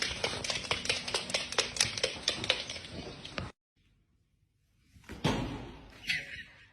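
Rapid, irregular clicking or tapping, about five clicks a second, cut off suddenly after about three and a half seconds. After a second of silence comes a sudden, louder noisy sound.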